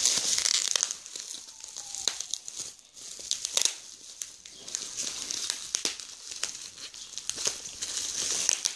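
Plastic bubble wrap crinkling and crackling with many small sharp clicks as hands squeeze and pull at it, trying to get it open. It is loudest in the first second and again about halfway through.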